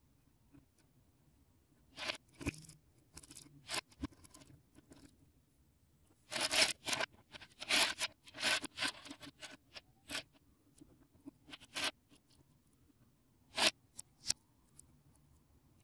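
Plastic Lego bricks and plates clicking and rattling as they are handled on a baseplate, in scattered bursts with a busy flurry of clicks around the middle.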